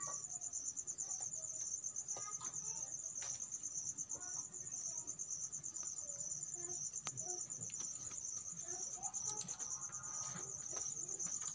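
Crickets chirping in a steady, high, evenly pulsing trill, with a few faint clicks and rustles of paper wrapping and ribbon being handled.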